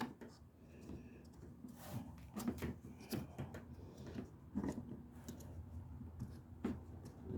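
Hands working the plastic air-intake cover under a car's hood, pressing foam padding in between the cover and its bracket: irregular light plastic clicks, small knocks and rubbing.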